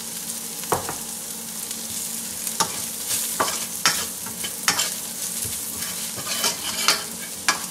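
Sliced okra frying in oil and spices in a stainless steel pan on high heat, sizzling steadily while a metal spoon stirs it, the spoon clinking and scraping against the pan several times.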